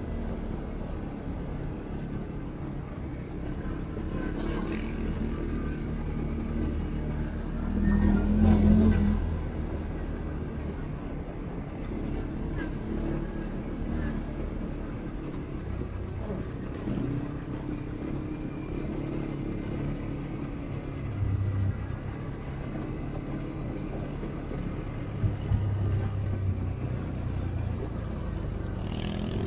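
CF-Moto 450 ATV engine running under way, its low note rising and falling with the throttle, with a louder surge about eight seconds in.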